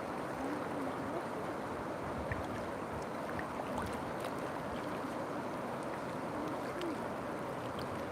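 River water flowing, a steady rushing with faint gurgles.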